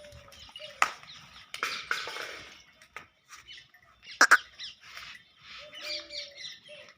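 Small birds chirping in quick short calls, with two sharp knocks, one about a second in and a louder one a little past the middle.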